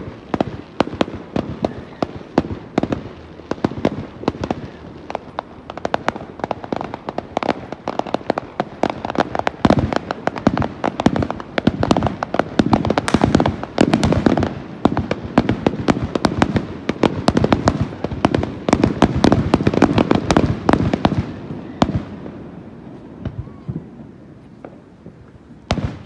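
Fireworks display: a dense barrage of rapid sharp cracks and bangs from bursting aerial shells, dying away about 22 seconds in, with one last sharp crack near the end.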